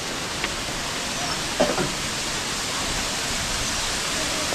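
Steady rush of fast-flowing mountain water, an even hiss-like roar.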